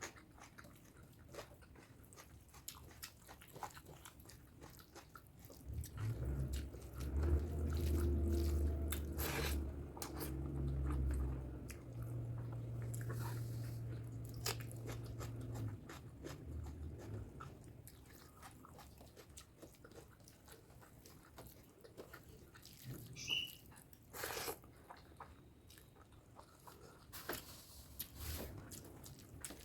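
Close-miked eating of pork curry and rice: chewing, lip smacks and small mouth clicks throughout. From about six seconds in, a steady low hum lasting about ten seconds is the loudest sound.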